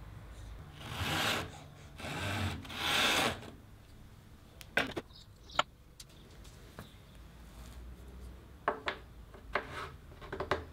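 A tapered wooden bench dog being worked into a 19 mm hole in a plywood bench top: three short scrapes of wood rubbing on wood as it is pushed and twisted in, then a few sharp wooden knocks and taps as its fit is tested.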